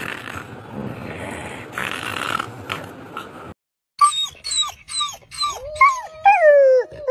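A rough, hissing noise for about three and a half seconds, then, from about four seconds in, a spotted hyena calling: a run of short yelps falling in pitch, about two a second, drawing out into longer whining calls that rise and then hold near the end.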